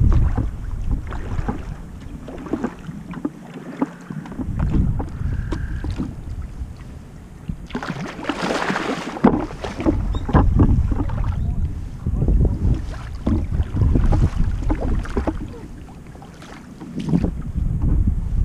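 Kayak paddling: a double-bladed paddle dipping and splashing in calm water, stroke after stroke, with wind rumbling on the microphone. A louder rush of splashing water about eight to nine seconds in.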